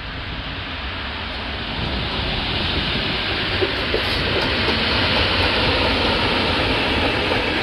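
PKP Intercity passenger train hauled by an electric locomotive, approaching and passing close by: a steady rush of wheel and rail noise that grows louder over the first few seconds and then holds.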